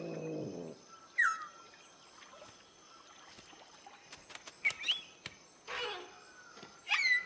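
Owlet chicks' short, squeaky chirps: one falling call just after a second in, then rising calls near five seconds and near the end. Faint, steady high tones run underneath, and a low sustained tone fades out in the first half-second.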